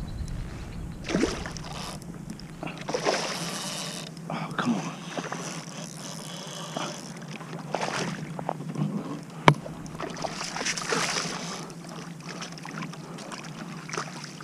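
Water splashing and sloshing beside a kayak as a hooked striped bass (rockfish) thrashes at the surface, in irregular bursts. A single sharp knock comes about nine and a half seconds in.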